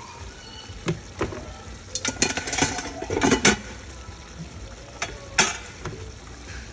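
Metal kitchen utensils clicking and clattering against cookware in a few quick clusters, the busiest stretch in the middle, over the low hiss of a pan of sauce simmering.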